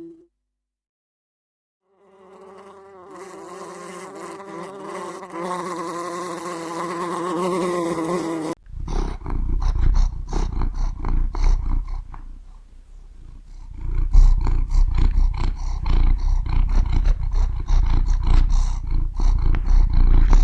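A flying insect's steady buzz, wavering in pitch, starting about two seconds in, then cut off abruptly by loud, rough, low rumbling in irregular pulses, like an animal's roaring.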